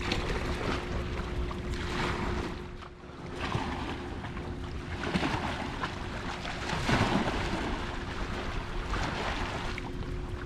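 Small waves washing against shoreline rocks in swells every second or two, with wind buffeting the microphone and a faint steady low hum underneath.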